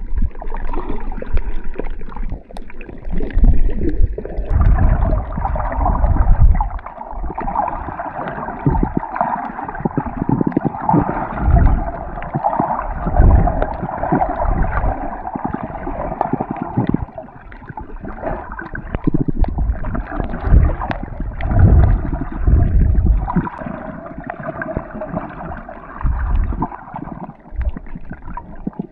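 Muffled underwater water noise as picked up by a submerged camera, with irregular deep thumps of water moving against it and a steady dull hiss; nothing above a fairly low pitch comes through.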